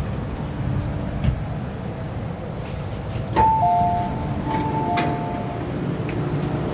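A two-note electronic chime, high then low, sounds twice about a second apart, over the steady low rumble of an MTR M-Train standing at a station. Just before it there is a sharp knock.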